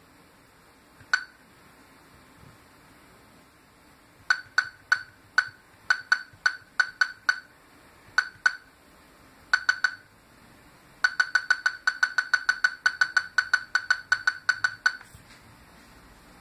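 Laser projection keyboard's electronic key-click beeps, one short pitched tick for each keystroke as fingers type on the projected keys. A single click comes about a second in, then scattered runs of clicks, then a quick even run of about five a second near the end.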